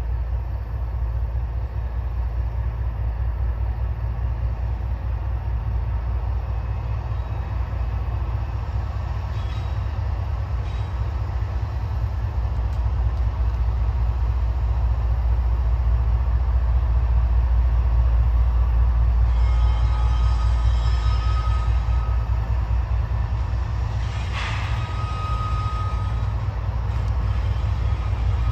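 Two GE ET44AC diesel locomotives leading a freight train, their engines a deep rumble that grows louder as they approach, with the cars rolling behind. A high steady squeal from the wheels comes in about two-thirds of the way through and again near the end.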